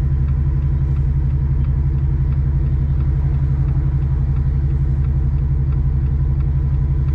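A car's engine and road noise as a steady low drone, holding the same pitch with no revving.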